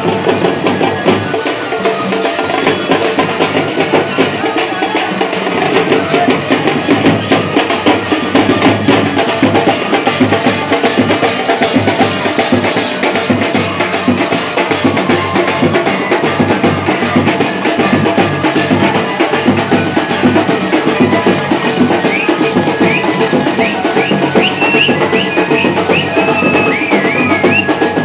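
Dhol and tasa drums played together in a fast, driving rhythm with dense rapid strikes. A high wavering pitched sound joins in over the last few seconds.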